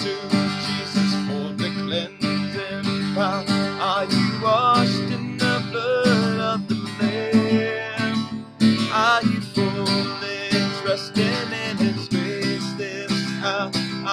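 Music: a strummed acoustic guitar accompanying a voice singing a worship song.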